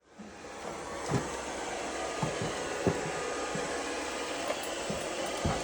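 Robot vacuum running with a steady whir, with a few short low knocks scattered through it.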